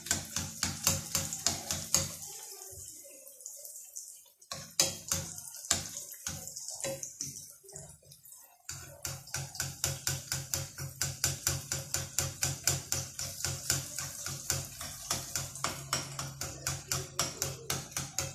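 Rghaif flatbreads frying in deep hot oil in a pan, sizzling and crackling, under background music with a steady beat. The sound thins out and grows quieter for a few seconds after the first couple of seconds, then returns.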